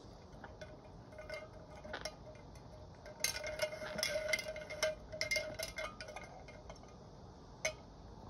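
Ice cubes clinking and rattling inside a drinking tumbler as it is tipped to drink, with a cluster of ringing clinks in the middle and a last single clink near the end. Under it runs the steady hiss of an electric fan's breeze.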